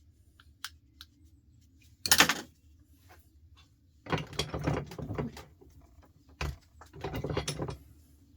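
Parts of an old record player being handled and taken apart: sharp clicks, a loud knock about two seconds in, then two spells of rattling and clattering of metal and plastic pieces.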